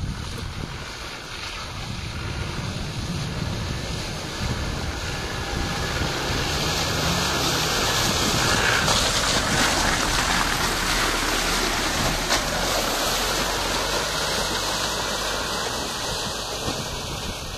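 Land Rover Defender 4x4 engine running as it drives through water-filled, muddy ruts, with tyres splashing and sloshing through the puddles. The sound grows louder as it approaches, is loudest about halfway through as it passes close, then fades as it moves away, with wind buffeting the microphone.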